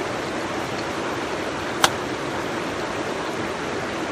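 Steady rush of a river running over rocks, with one sharp knock about two seconds in.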